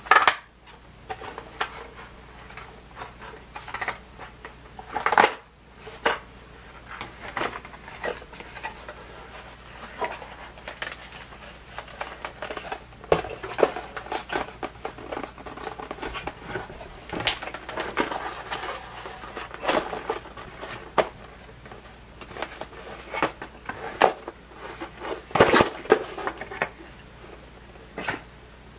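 Nerf toy packaging being handled and opened: irregular plastic and cardboard rustles, crinkles and clicks, with a few louder knocks.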